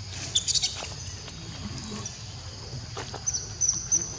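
Short high-pitched animal chirps in two brief clusters, about half a second in and again near the end, over a steady background.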